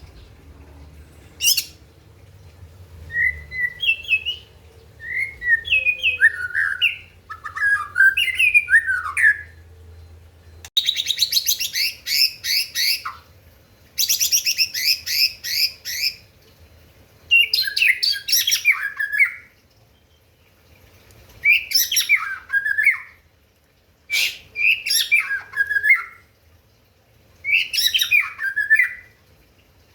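White-rumped shama singing: varied whistled phrases and quick trills every few seconds, with two longer runs of fast repeated notes in the middle. It is a full, aggressive song of the kind used as a lure to provoke rival shamas.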